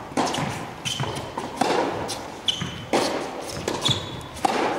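Tennis ball being hit back and forth in a rally on an indoor court: sharp racket strikes and bounces about every second and a half, echoing in the hall. Short high squeaks come between the shots.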